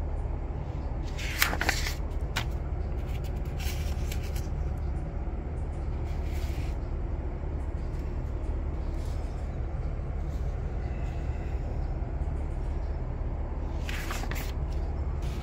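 Pages of a paper instruction booklet being turned, with short papery rustles a few times, most clearly about a second and a half in and again near the end, over a steady low hum.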